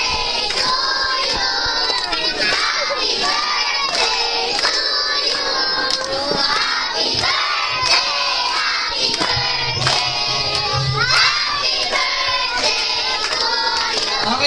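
A crowd of children and adults singing a birthday song together over a microphone and speakers, with hand claps along the beat.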